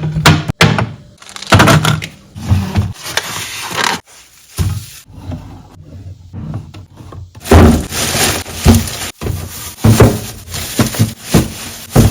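Irregular knocks, thuds and clatter of household items being handled and set down, with brief stretches of scraping or rustling. The sound cuts off abruptly several times, as in quick edits.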